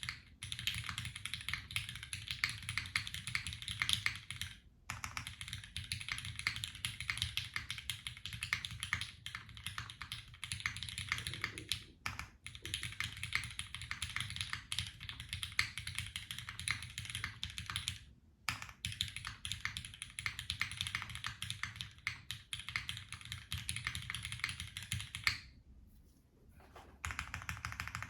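Fast, continuous typing on a custom mechanical keyboard with lubed Cherry MX Black Hyperglide linear switches, an aluminium plate and GMK keycaps. There are brief pauses about five, twelve and eighteen seconds in, and a pause of about a second and a half near the end.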